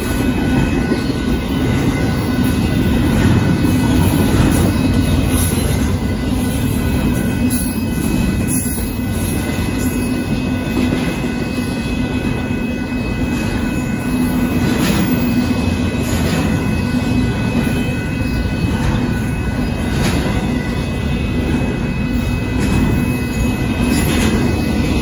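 Union Pacific intermodal freight train's double-stack container cars rolling past at a grade crossing: a steady, continuous rumble of wheels on rail, with faint steady high-pitched tones over it.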